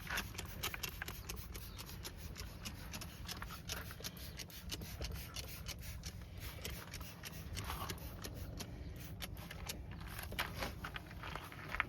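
A cloth rubbing and wiping over a truck door: a quick, uneven run of scuffing and scraping strokes over a steady low rumble.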